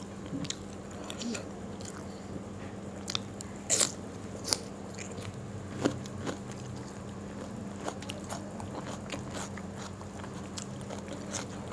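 Close-up chewing of crispy fried food, with a few sharp crunches a few seconds in and softer chewing after, over a steady low hum.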